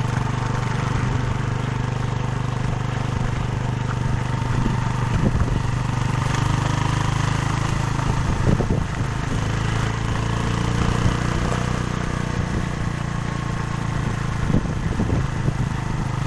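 Engine of a slow-moving motor vehicle running steadily, a constant low hum, with a few brief louder moments.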